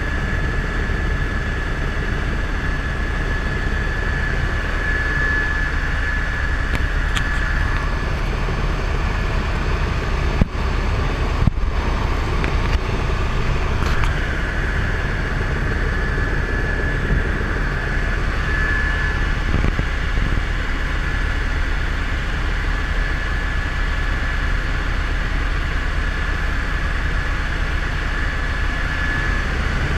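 Helicopter in flight: a steady low rotor and engine drone with a thin, steady turbine whine above it. The whine drops out for a few seconds about eight seconds in and returns near fourteen seconds, with a couple of brief clicks in between.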